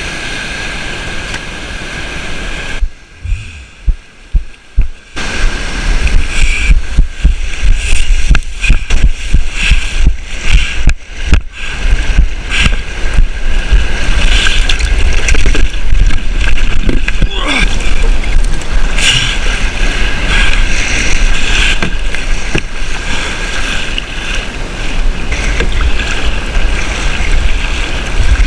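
A sit-on-top kayak going out through breaking surf and being paddled: water splashing and sloshing around the hull under a heavy low rumble. A run of about five sharp knocks comes about three to five seconds in.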